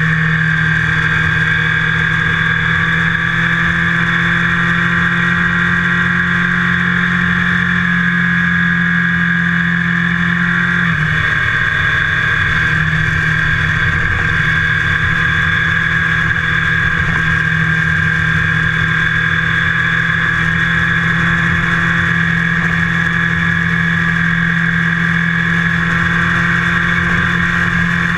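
Motorcycle engine running steadily at cruising speed, heard from a camera mounted on the bike, with wind and road noise. The engine note changes briefly about eleven seconds in, then holds steady again.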